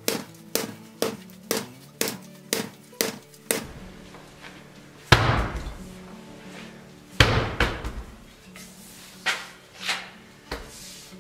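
Sharp knocks of a wooden carriage wheel with a hard rubber tire being bounced and set down on a concrete floor, over background music. The knocks come about twice a second at first, then two heavier impacts with a ringing rattle land about five and seven seconds in, followed by a few lighter knocks.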